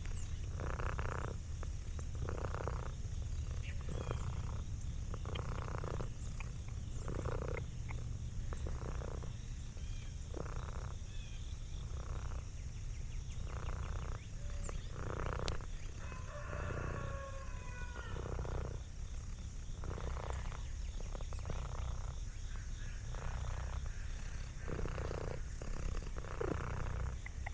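Domestic cat purring steadily, the sound swelling about every second and a half as it breathes in and out.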